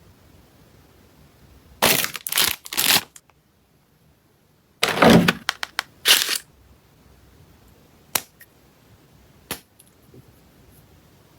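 Makeup packaging handled close to the microphone: two clusters of loud, sharp rustling bursts, then two single sharp clicks.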